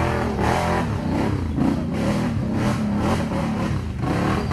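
Quad bike (ATV) engines running and revving on a steep muddy climb, the engine pitch rising and falling unevenly.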